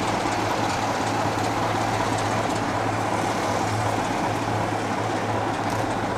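BR Class 27 diesel locomotive's engine idling steadily while it stands at the platform, a constant low hum under a dense mechanical clatter.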